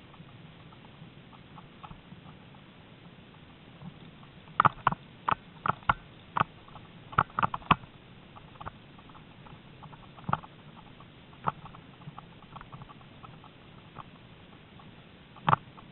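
A wheeled dog-mushing rig rolling over a rough grass track, with sharp irregular rattling knocks from the rig, bunched together about four to eight seconds in and scattered after that.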